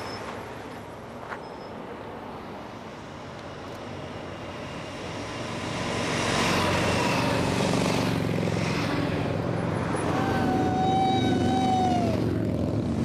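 Traffic passing on a highway, then the rising engine rumble of a large group of motorcycles approaching, led by a police motorcycle escort, growing louder from about six seconds in. Near the end a held tone of about two seconds, like a siren, falls in pitch as it stops.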